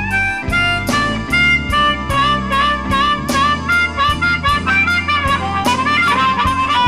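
Electric Chicago blues band playing an instrumental break. An amplified harmonica plays a lead line of quick, bending notes over bass and a steady drum beat.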